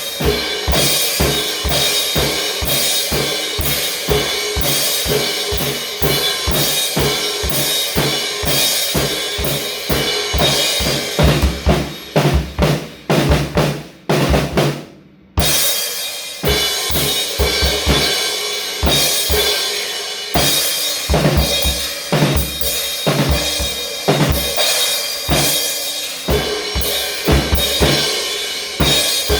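Music driven by a drum kit: a steady beat of bass drum and snare with dense instruments over it. About halfway through it stutters and cuts out for about a second, then the beat picks up again.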